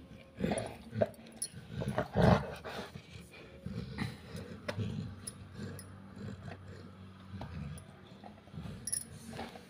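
Saint Bernard dog growling low and drawn out while held by its collar, with a few knocks and rustles of handling in the first couple of seconds.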